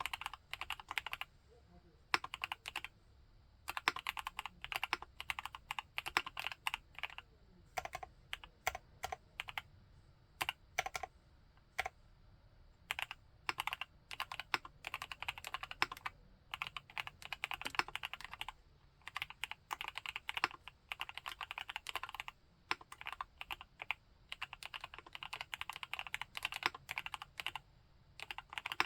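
Typing on a TACWORKS TAC T2 mechanical keyboard with Gateron Yellow linear switches. The keystrokes come in fast runs broken by brief pauses.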